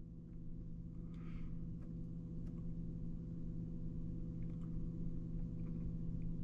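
A steady low mechanical hum that grows slightly louder, with a few faint ticks.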